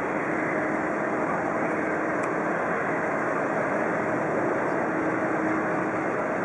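A McDonnell Douglas MD-90's two rear-mounted IAE V2500 turbofans at low taxiing thrust: a steady rush of jet engine noise with a faint, even hum underneath.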